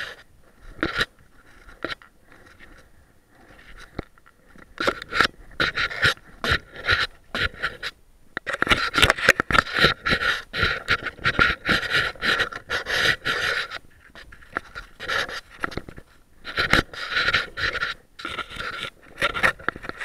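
Boston terrier panting rapidly, heard very close from a camera mounted on the dog's body. The quick breaths come in runs: a few scattered puffs at first, then long busy stretches in the middle and near the end.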